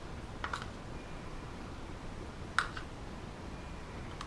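A few light clicks of a kitchen utensil against a dish, a small pair about half a second in and a sharper pair about two and a half seconds in, over faint room noise.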